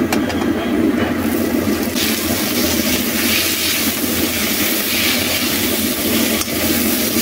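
Sliced onions frying in hot oil in a steel kadhai, sizzling from about a second or two in as they are tipped in and stirred with a slotted spatula, over a steady low hum.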